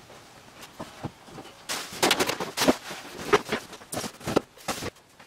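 Scattered knocks, clicks and clatters of wood and tools being handled on a workshop floor and bench, busiest about two seconds in and again around three to four seconds in.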